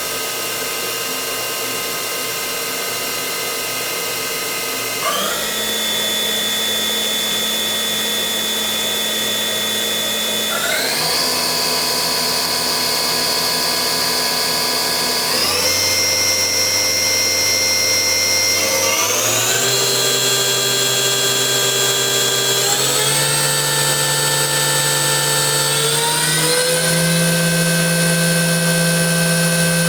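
Hardinge GX480 vertical machining center's spindle running with a steady whine, stepped up in speed six times every few seconds, each step raising the pitch a notch.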